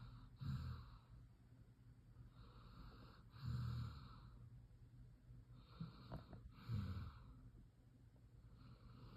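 Faint snoring from a sleeper breathing slowly. About every three seconds a breath comes in with a hiss and ends in a short, low, rattling snore, three times in all.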